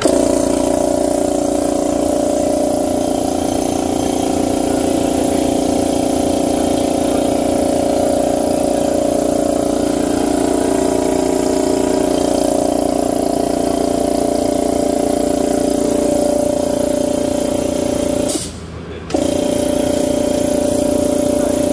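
Keyang 2.5 HP piston air compressor switched on, its motor and pump starting at once and running with a steady loud hum. It runs off a van-mounted 220 V inverter. The sound dips briefly near the end, then carries on.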